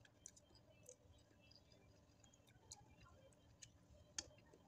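Faint chewing and slurping of fried noodles: soft, scattered wet mouth clicks and smacks, with one sharper click a little after four seconds.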